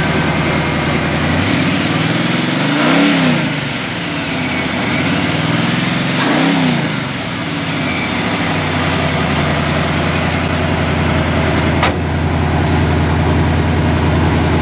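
Big-block Chevy V8, a 454 bored out to 468 with headers into Hooker Super Comp exhaust, idling and then blipped twice: the revs climb and fall back about three and a half seconds apart before it settles into a steady idle again. A single short click sounds near the end.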